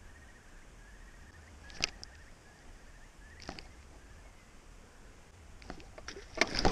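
Spinning reel cranked during a lure retrieve: a faint, even whir, with two sharp clicks and a run of taps and knocks from handling the rod and reel near the end.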